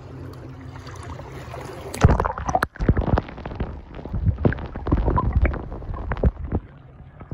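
Sea ambience, then a splash about two seconds in as a phone is plunged under the surface. After that the sound turns dull and muffled, with underwater gurgling, sloshing and irregular knocks.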